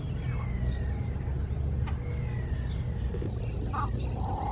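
Birds calling: short high chirps and a couple of falling whistles, with a sharper call near the end, over a steady low rumble.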